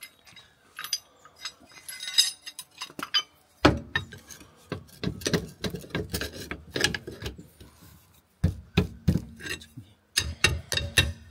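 Metal hand tools clinking, knocking and rattling against metal parts in irregular taps, with scraping in between.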